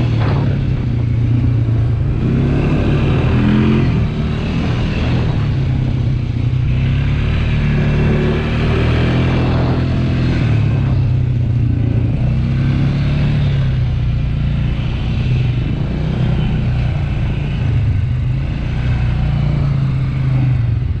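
ATV engine running steadily under way, its pitch rising and falling with the throttle a few times.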